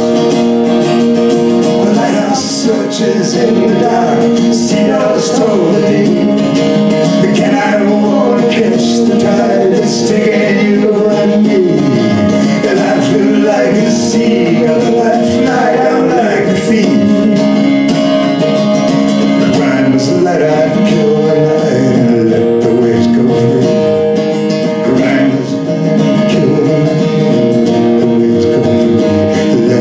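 Live acoustic folk music: an acoustic guitar strummed steadily, with a violin playing sliding melody lines over it by the end.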